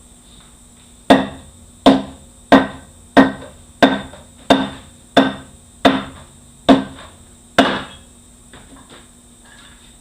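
Ten sharp hammer blows on metal, a little under one a second, each ringing briefly: driving the stator out of a 6L80E transmission's pump.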